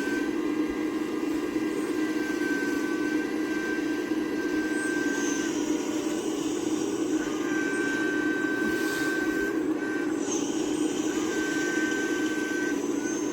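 Hydraulic RC 6015B excavator running with a steady hum and a high whine that breaks off briefly a few times.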